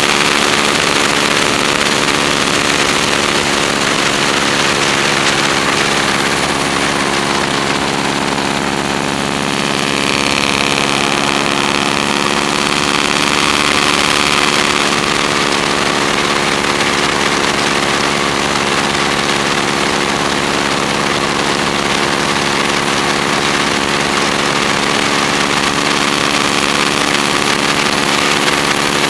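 Stearman biplane's radial engine running steadily in flight, with wind rushing over the wing-mounted microphone. The engine note changes briefly about ten seconds in.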